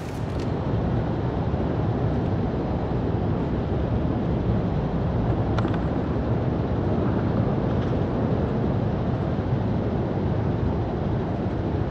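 Steady outdoor background rumble, heaviest in the low range, with no distinct events.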